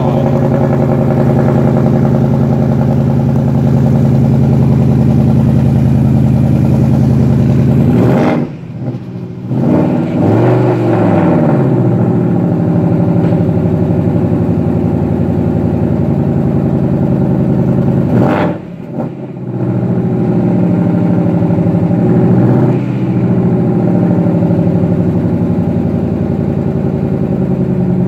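Roush Jackhammer Mustang's supercharged 5.0 V8 idling loudly through its exhaust, given a short rev about eight seconds in and again about eighteen seconds in, each time dipping briefly and then swinging back to a steady idle.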